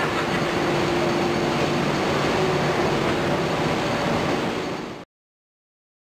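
Steady machinery hum and noise of a factory floor. It cuts off suddenly about five seconds in.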